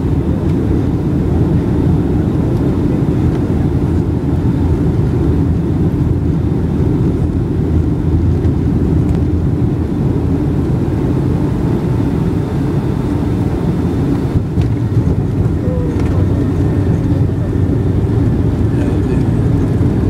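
Cabin noise inside a Boeing 737-800, heard from a window seat over the wing: the steady low rumble of its CFM56 turbofans and the air rushing past, through the landing flare, touchdown and start of the rollout. The level stays even throughout.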